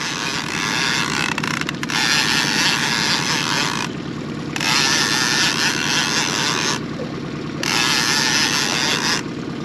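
Heavy fishing reel cranked hard in long stretches while a catfish is played: a loud, even whirr with a fast low rhythm under it. The whirr breaks off briefly about four seconds in, again around seven seconds, and near the end.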